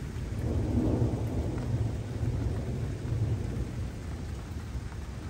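Rolling thunder rumbling low, swelling to its loudest about a second in and trailing off over the next few seconds.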